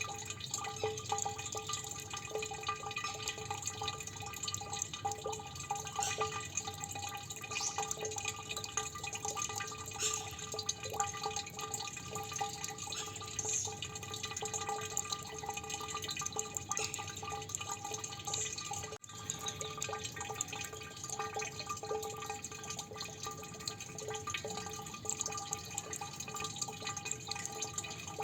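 Water dripping continuously, many small drops a second over a steady ringing tone, with a split-second dropout about two-thirds of the way through.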